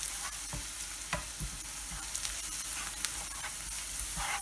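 Softened chopped onions and ground spices sizzling in hot oil in a pan while being stirred: a steady hiss with scattered small ticks and pops.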